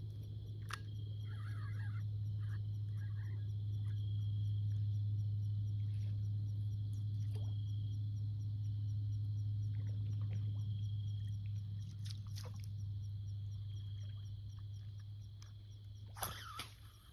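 Insects trilling steadily with a fast, even pulse over a loud, steady low hum, which fades near the end. A few short clicks and ticks sound through it, the sharpest near the end.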